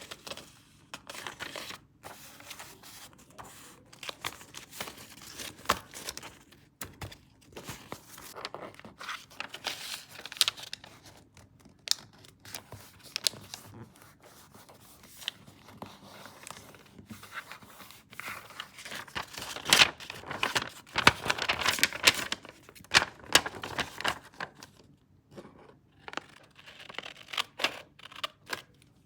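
Paper being handled: irregular rustling, crinkling and tearing with small taps and scrapes. The busiest, loudest stretch comes about two-thirds of the way through.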